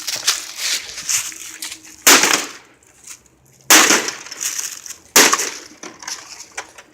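An air conditioner being smashed: three heavy blows about a second and a half apart, each with a crack of breaking parts, plus smaller rattling and clattering of loose pieces between them.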